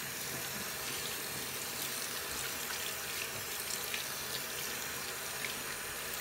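Tap water running steadily from a bathroom faucet into a sink while lathered hands are rubbed and rinsed under the stream.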